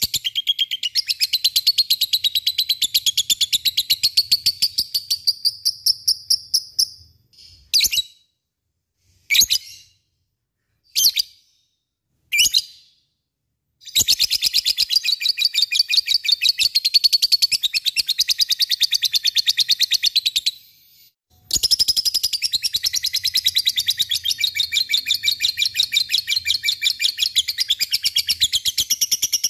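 Peach-faced lovebird singing ngekek: long, high, very fast rattling chatter of rapidly repeated notes. Partway through the bird breaks off and gives only a few short single calls, then goes back into long chattering bouts with one brief pause.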